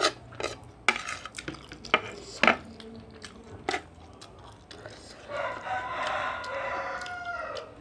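A spoon clinking against a plate several times, then a rooster crowing once, one long call of about two and a half seconds that drops in pitch at its end.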